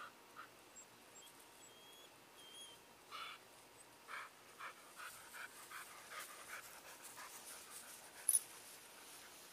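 A dog panting with its mouth open, faint quick breaths at about three a second, with a single sharp click near the end.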